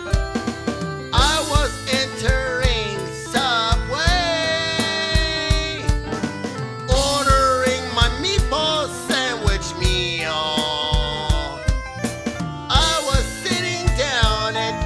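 Background music: a song with a sung vocal in short phrases over a steady drum beat and instrumental backing.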